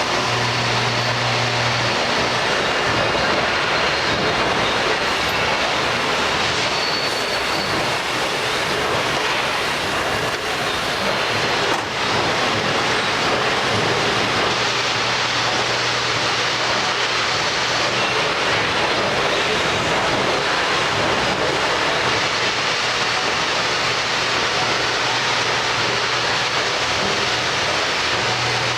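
Miyano BND-34S CNC lathe running a job: steady loud machining noise with a low hum that drops away about two seconds in and returns near the end.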